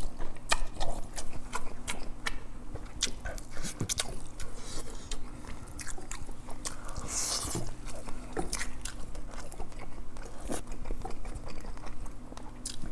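Close-miked chewing and wet lip-smacking of a person eating grilled yellow croaker and rice, with frequent sharp mouth clicks and a short hissing sound about seven seconds in.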